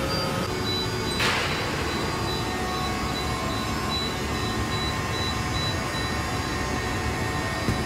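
Roll splitter guillotine running with a steady mechanical noise and a faint hum, and a sharp hiss about a second in that fades quickly.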